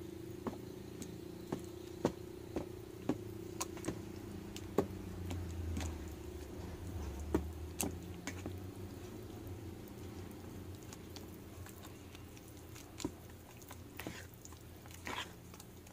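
Spatula stirring thick banana cake batter in a basin: soft wet stirring with light knocks about twice a second, over a steady low hum.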